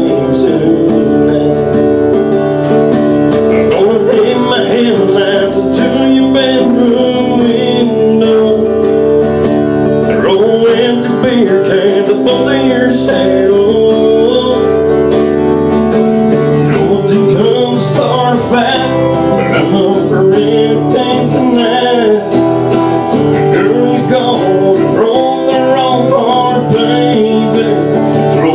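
Acoustic guitar strummed steadily, playing a country song live.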